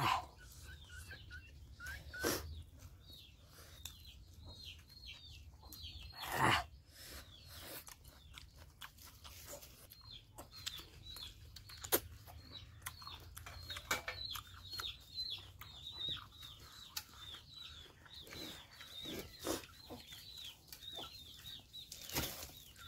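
Chickens calling in the background: a run of short, high, falling peeps, several a second, from about ten seconds in. Close by, eating by hand: chewing, lip smacks and scattered clicks, with louder knocks around two seconds, six seconds and near the end.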